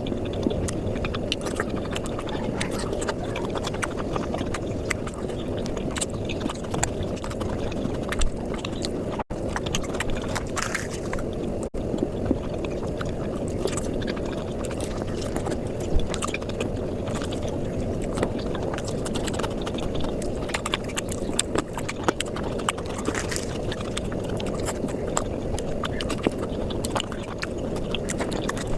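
Close-miked eating sounds sped up about fivefold: chewing, lip smacks and mouth clicks from someone eating flatbread with curry, run together into a dense, rapid clatter. It breaks off twice for an instant, at about nine and twelve seconds.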